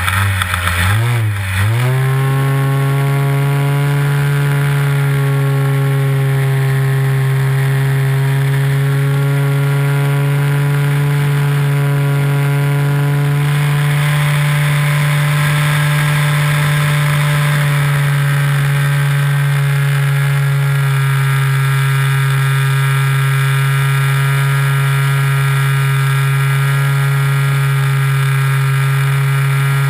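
Nitro glow engine of a Big Stik 60 RC plane running steadily in flight, heard from a camera mounted on the airframe. Its pitch dips and comes back twice in the first two seconds, then holds steady.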